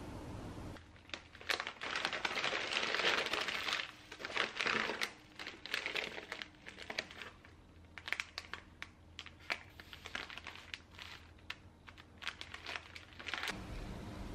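Plastic food packaging crinkling and crackling as it is handled, densest in the first few seconds, then scattered crackles and taps.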